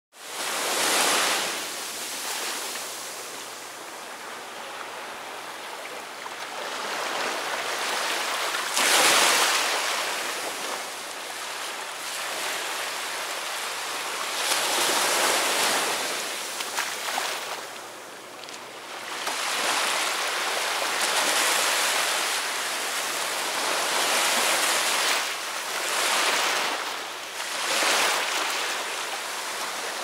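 Small sea waves breaking and washing up over sand close by, the surf swelling and easing every few seconds, loudest about nine seconds in.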